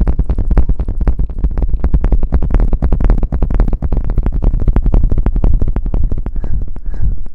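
Close-miked ASMR rustling against the microphone: a rapid, dense run of crackles over a heavy low rumble, thinning out near the end.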